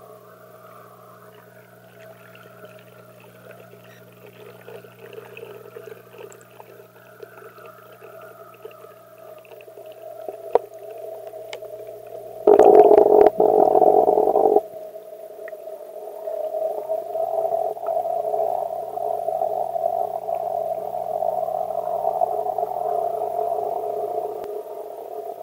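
Muffled, steady underwater hum picked up through an action camera's sealed waterproof case, with a loud burst of noise lasting about two seconds about halfway through. The hum grows louder in the second half.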